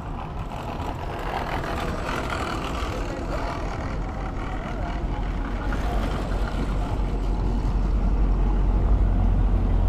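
Street traffic: a heavy road vehicle's engine rumbling and growing louder over the second half, with voices in the background.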